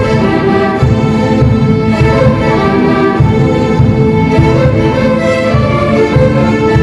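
Folk orchestra playing, violins to the fore over a pulsing low rhythm.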